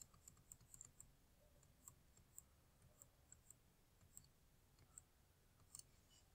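Near silence with faint, irregular clicks of a computer mouse scroll wheel as a document is scrolled.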